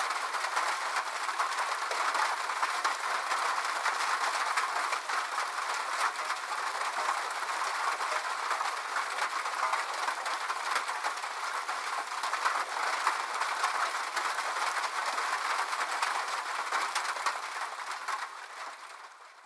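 Rain falling on a metal roof: a steady, dense patter of drops that fades out near the end.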